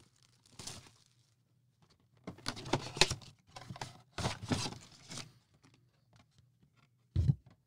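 Cellophane shrink-wrap on a trading card box being torn and crumpled, in several bursts of crackling. A short thump follows near the end.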